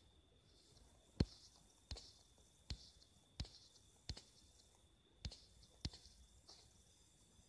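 A series of sharp, short clicks, about eight of them at roughly even intervals, the loudest about a second in, over a faint steady high-pitched whine.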